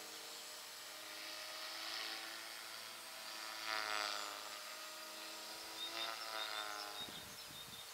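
Thunder Tiger Mini Titan E325 V2 electric RC helicopter in flight: a high-pitched motor whine that swells and shifts in pitch as it manoeuvres, loudest about four seconds in and again around six seconds.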